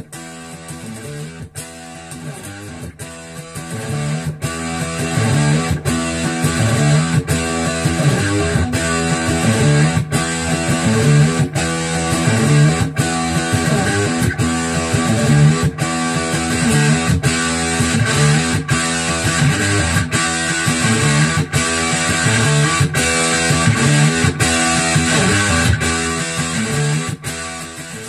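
Electric guitar played through a homemade Jack Orman Overdrive Pro pedal, switched on, giving an overdriven tone: a strummed chord riff repeating about every second and a half. It gets louder about four seconds in and drops again near the end.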